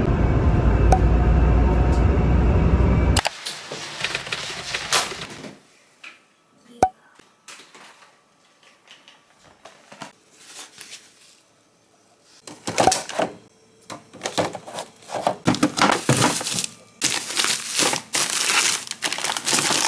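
A steady low vehicle rumble for about three seconds, cut off suddenly. Then scattered light clicks and rustles, and from about halfway on, repeated bursts of plastic bags and packaging crinkling as they are handled.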